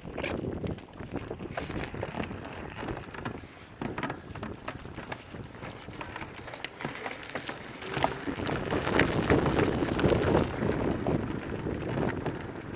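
Electric trail bike riding over a rough dirt trail: tyres crunching and knocking over rocks and roots, with many sharp clicks and rattles and wind rumbling on the microphone. It gets louder from about eight seconds in.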